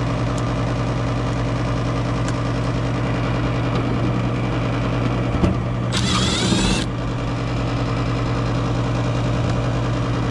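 Steady electric motor hum of a running gas furnace. About six seconds in, a brief high-pitched squeal lasts under a second.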